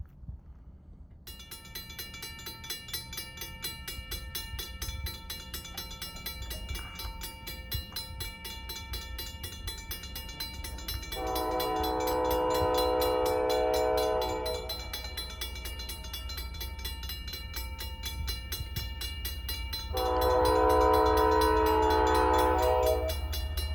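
Norfolk Southern freight locomotive's multi-chime air horn sounding two long blasts, each about three seconds, over the low rumble of the approaching locomotive, which grows louder. The pattern is the start of the horn sequence for a road crossing.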